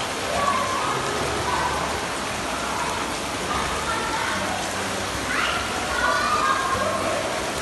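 Steady rushing and splashing of churning water in a small indoor pool or spa, with brief children's voices calling out over it now and then.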